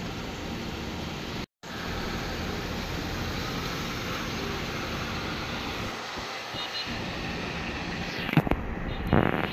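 Steady noise of traffic on a wet, waterlogged road. The sound cuts out for a moment about a second and a half in, and near the end come a few sharp knocks.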